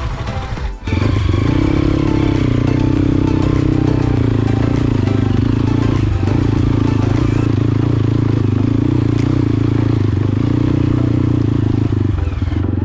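Motorcycle engine running steadily under load, with a brief dropout about a second in.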